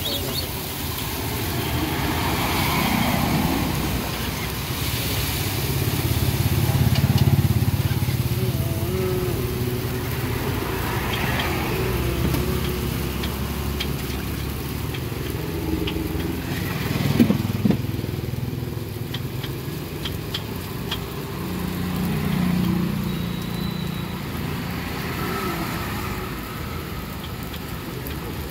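Street traffic with motorcycles going by: a steady engine rumble that swells and fades several times. There are a few sharp clinks about seventeen seconds in.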